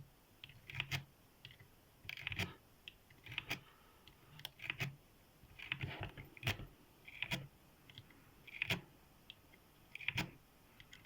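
Faint light metallic clicks and rattles, roughly one a second, from lock picks and tension tool working a Yale YE1/40 padlock.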